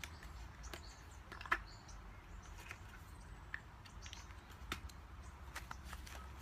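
Scattered light clicks and taps of hands handling small objects, the sharpest about one and a half seconds in.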